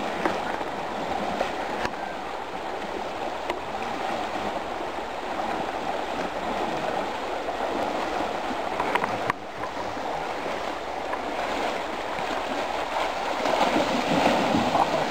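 River water rushing steadily over a shallow bed. Near the end, louder splashing as a Kodiak brown bear lunges through the water after salmon.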